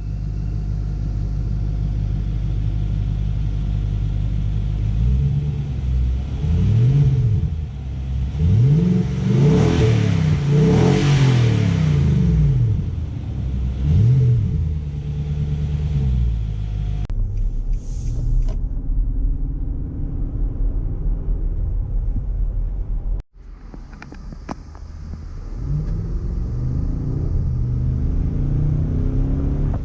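Nissan Patrol Y62 V8 exhaust idling, then revved several times in quick blips, each rise and fall in pitch, heard from behind the car. After about 17 seconds it is heard from inside the cabin while driving, the engine note climbing under acceleration near the end.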